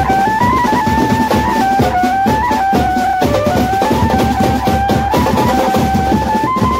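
Banjo-party street band playing: fast, dense drumming on stick-beaten side drums and a large bass drum, under a stepwise lead melody line.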